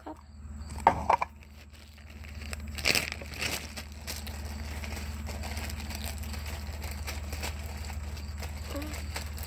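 Homemade slime being handled and squished into a small cup, with faint crackling and a couple of sharp knocks about a second in, over a steady low hum.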